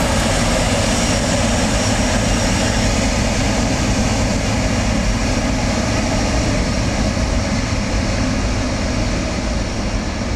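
Boeing 777-300ER's GE90 turbofan engines running at taxi power as the airliner rolls past at close range: a steady, loud jet engine roar and hiss that eases a little near the end.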